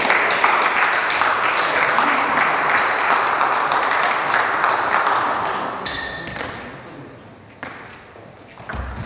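Spectators clapping after a point in a table tennis match, the applause dying away over about six seconds. Near the end come a few sharp clicks of a celluloid table tennis ball on bat and table as the next serve is put into play.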